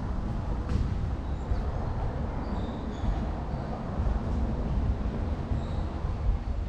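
Low, uneven rumble of wind buffeting an action camera's microphone.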